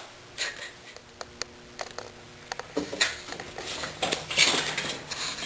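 Handling noise: a few light clicks and knocks, then denser rustling from about three seconds in.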